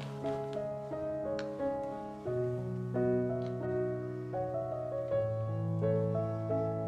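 Background piano music: a gentle melody of single notes over low held bass notes that change every few seconds.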